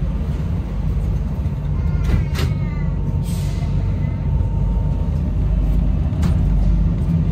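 Inside an Alstom NS-93 rubber-tyred metro car: a steady low rumble, with a sharp clunk about two seconds in and a short hiss of air a second later as the doors shut. A thin steady tone runs for a few seconds and a click comes near the end.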